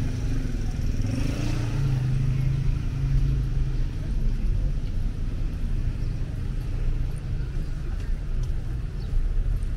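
City street traffic: a steady low rumble of car engines running nearby.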